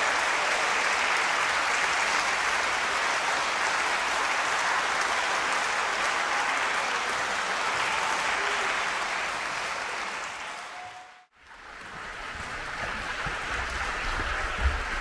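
Concert hall audience applauding steadily. The sound fades out about eleven seconds in, then the applause returns duller and quieter, heard from the stage wings.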